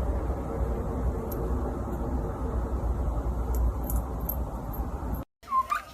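A steady low rumbling noise with a few faint ticks, which cuts off suddenly near the end; a bird then gives a short chirp that dips and rises in pitch.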